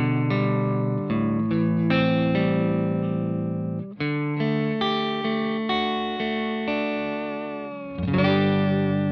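Electric guitar played through a Cort x Moollon CMV15 valve combo amp, miked with a Shure SM57: chords and notes struck and left to ring, with a short break about four seconds in and a loud chord near the end that sustains.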